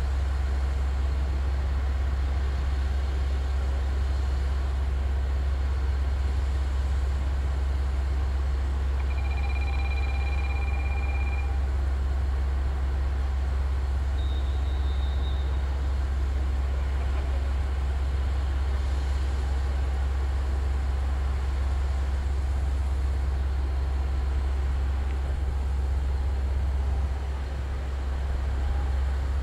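Diesel engines of a KiRo 185 series diesel railcar idling at a standstill: a steady low rumble, with a couple of brief faint high tones partway through.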